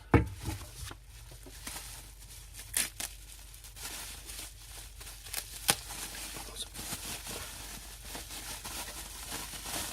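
Packaging of a new car horn set being opened by hand: tearing and crinkling with scattered sharp clicks, the loudest about 3 and 6 seconds in.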